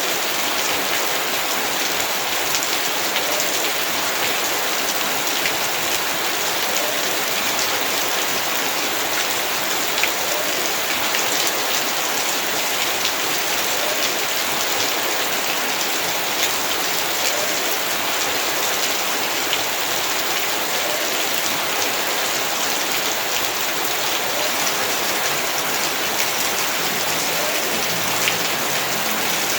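Heavy rain falling steadily, a dense, even hiss of drops on the ground and surfaces, with scattered sharper drop ticks.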